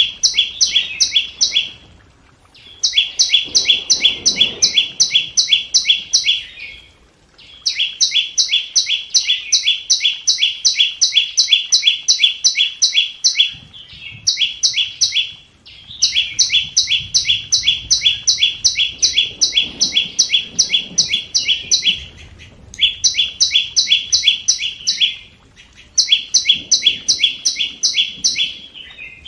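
Scarlet-backed flowerpecker giving a rapid series of sharp, high, identical call notes, about four a second, in runs of a few seconds broken by short pauses.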